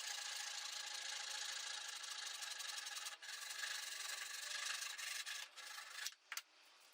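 Steady rasping of a power tool abrading material, held without strokes for about six seconds and then stopping, followed by a few light clicks.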